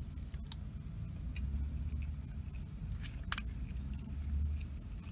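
Eating sounds: chewing a mouthful of fried rice, with a few sharp clicks of a plastic utensil against a plastic takeout container, the loudest a little past three seconds in. A steady low rumble runs underneath.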